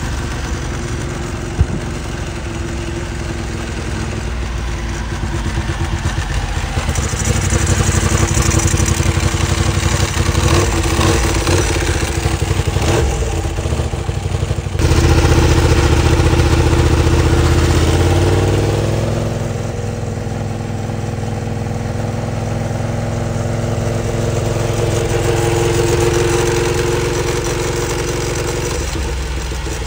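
Ducati 749R's L-twin engine breathing through a Termignoni full exhaust, running at low revs with a steady deep beat. It gets louder about halfway through, then the pitch shifts as the revs change, and it settles back to a lower steady run.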